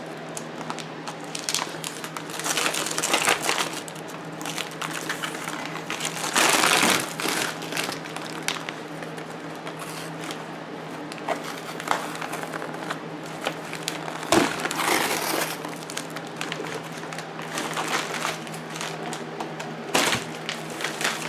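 Packaging crinkling and rustling in irregular bursts as a new flywheel is unpacked from its box, over a steady low hum.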